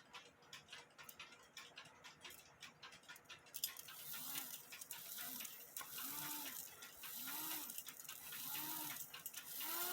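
HECO mechanical cuckoo clock ticking. About three and a half seconds in, the strike train starts running with a hiss, and the bellows-driven bird sounds its two-note cuckoo call several times, about one call every second and a half.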